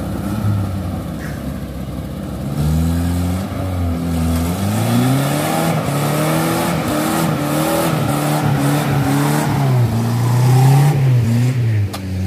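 Old Willys jeep engine revving unevenly under load on a muddy off-road climb, its pitch rising and falling again and again. It runs lower and steadier at first and the revving starts and grows louder about two and a half seconds in.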